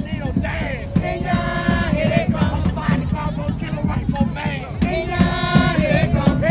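Mardi Gras Indian street chant: voices singing and chanting over tambourines, hand drums and a bass drum beaten steadily. A lead voice holds a long sung note twice.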